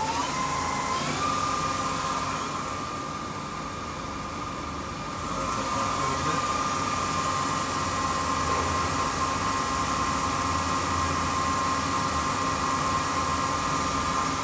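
Mori Seiki ZL-35 CNC lathe spindle spinning the chuck, set to 500 rpm in the high range. The drive's whine rises in pitch for about the first second as the spindle reaches speed, then holds as a steady tone over a low hum, growing slightly louder about halfway through.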